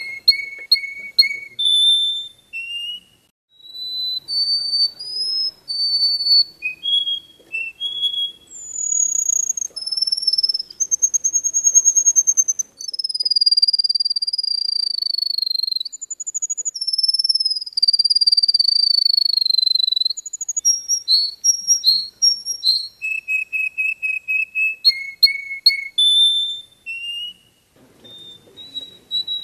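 Yellow finch singing a long, nearly unbroken song of quick repeated high notes, trills and long drawn-out falling whistles, with a short pause about three seconds in, fading near the end.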